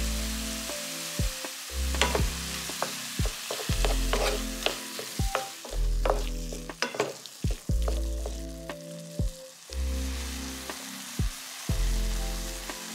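Chopped tomatoes, onion and tomato paste sizzling in a hot nonstick frying pan, with a utensil clicking and scraping against the pan as the mixture is stirred.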